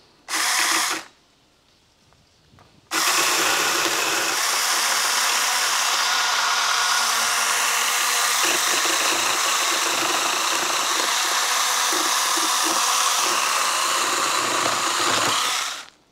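A 24-volt cordless 8-inch mini chainsaw gives a short burst of under a second, then after a pause runs steadily for about thirteen seconds, cutting through a log, and stops just before the end. The cut goes with a little hesitation, slower than an 8-inch saw is supposed to cut.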